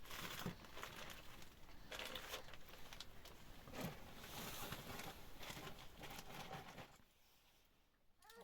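Faint paper rustling and crinkling, a run of short irregular crackles that stops about seven seconds in.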